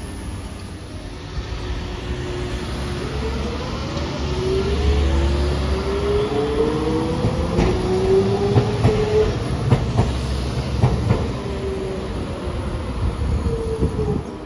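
A Hiroshima Electric Railway streetcar pulls away over street track. Its running gear rumbles low, a motor whine climbs slowly in pitch as it gathers speed, and a run of sharp clicks comes from the wheels over the rail joints in the middle of the sound.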